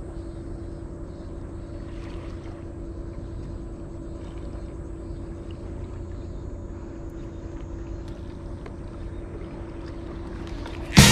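Steady low rumble with a constant droning hum from an unseen motor. A loud burst of music cuts in near the end.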